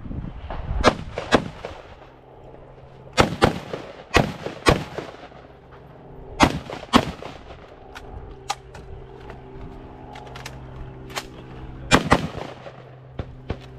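Rifle shots fired in quick pairs about half a second apart, five pairs spread through the stretch, with a few fainter single shots between them.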